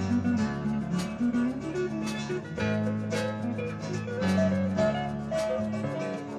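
Live rock band playing an instrumental passage: guitar over sustained bass notes, with a drum hit about once a second.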